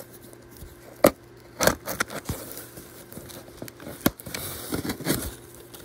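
A screwdriver slitting and scraping through packing tape on a cardboard box: sharp knocks and clicks, the loudest about a second in, then a scratchy tearing stretch of tape around four to five seconds in.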